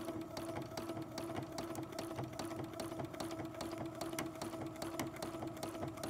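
Electric sewing machine stitching steadily in free-motion embroidery: an even motor hum with rapid, regular needle clicks.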